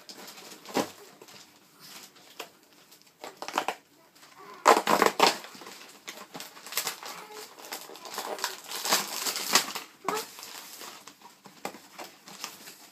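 A cardboard candy-kit box being torn open and its packaging handled: irregular crinkling and crushing, with the loudest tearing about five seconds in and again around nine seconds.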